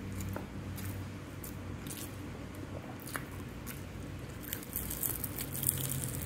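Close-up eating sounds: chewing a mouthful of rice and vegetables, with small wet mouth clicks. From about four and a half seconds in, a crackly rustle as a dried sardine (buwad tamban) is picked apart with the fingers.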